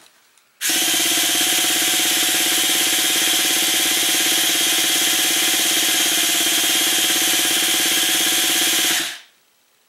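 A small electric motor runs steadily with a hum and a strong hiss for about eight seconds, starting half a second in and cutting off shortly before the end. It is being used to clear stale fuel out of a nitro RC truck's fuel system.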